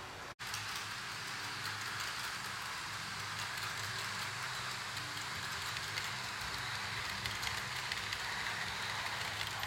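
HO scale model passenger train running on sectional track: a steady low motor hum under the even hiss of metal wheels rolling on the rails, with faint ticks. The sound cuts out for an instant just after the start.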